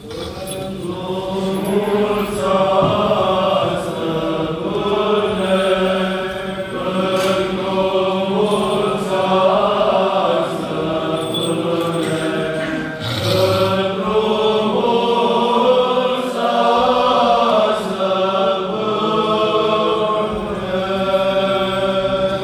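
Orthodox church chant sung by cantors: a slow melody held over a steady low drone note, with one short break in the middle.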